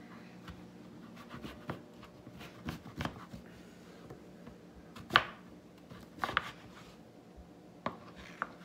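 Kitchen knife slicing through raw butternut squash and knocking on a plastic cutting board in irregular strokes, the loudest about five seconds in.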